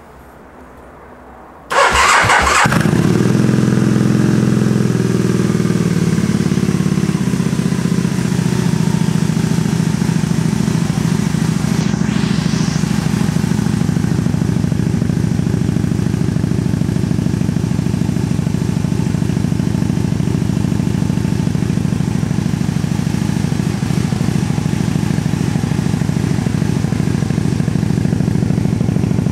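Motorcycle engine starting through aftermarket BEF Futura slip-on exhaust cans. A brief crank about two seconds in, then it catches at a fast idle that settles within a few seconds into a steady idle.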